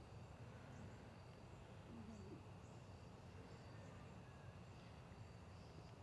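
Near silence: faint evening outdoor ambience, a steady low rumble with faint high insect chirps now and then.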